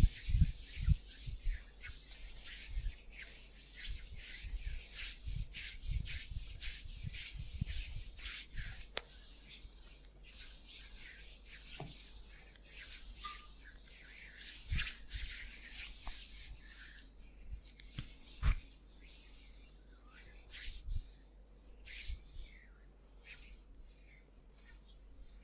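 Hands rubbing and kneading oiled skin in a massage, many short strokes one after another. Soft low thumps come in a run during the first several seconds, then now and then.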